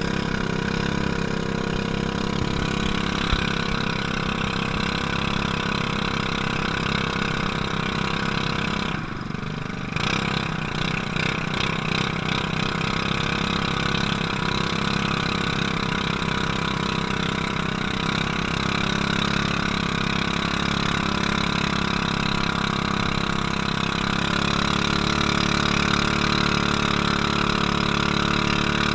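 Small inboard engine of a motorized outrigger boat (bangka) running steadily under way, with water rushing past the hull. The engine sound dips briefly about nine seconds in.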